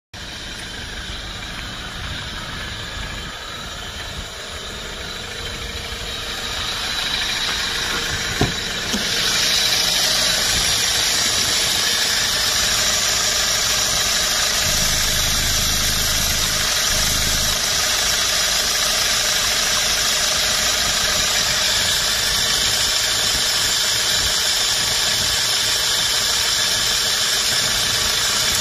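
2005 Hyundai Porter II CRDi diesel engine idling steadily, getting louder about nine seconds in, with a single sharp click just before.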